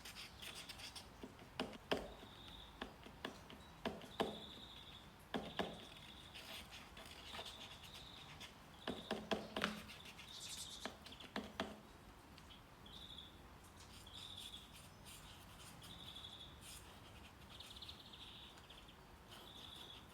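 Nature-sound background of short, high chirps repeating about once a second, with a handful of sharp clicks and taps in the first half.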